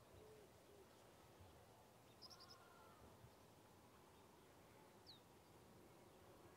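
Near silence: faint outdoor background with the tail of a faint bleat at the start, a few soft bird chirps about two seconds in, and a short falling whistle-like chirp near the end.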